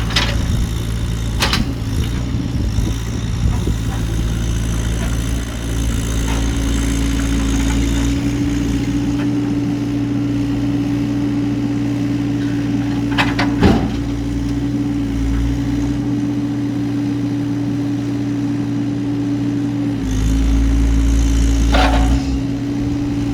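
Bobcat E80 excavator's diesel engine running steadily under hydraulic load, with a constant hum, rising to a louder rumble near the end. A few sharp knocks ring out over it as logs are handled.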